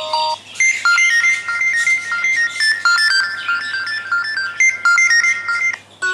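A Xiaomi Redmi Note 8 stock ringtone: a fast, repeating melody of bright electronic chime tones. The previous ringtone cuts off just after the start, and the next one begins after a brief gap near the end.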